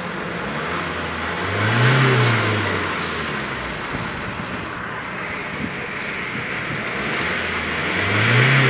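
SsangYong Actyon Sports 2.0-litre diesel engine, heard from inside the cab, idling and revved twice: its pitch rises and falls about two seconds in and again near the end. A decent sound for a 2-litre diesel.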